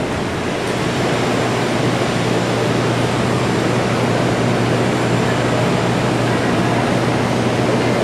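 Steady, even rushing noise with a low hum underneath, holding level throughout.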